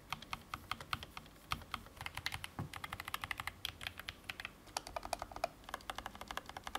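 Typing on a Keychron K17 Max low-profile mechanical keyboard: a fast, continuous run of key clicks with a couple of brief pauses.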